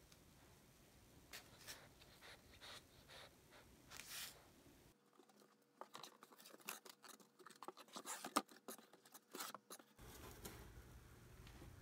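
Faint paper rustles and clicks, then a cardboard box being opened by hand: a run of dense crackling and rustling from the cardboard flaps and the snack packets inside, loudest about three seconds into it, ending about ten seconds in.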